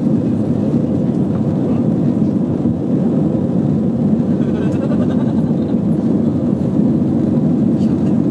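Steady cabin noise of an Airbus A320 taxiing, heard from a window seat: the even rumble and hum of the jet engines and cabin air.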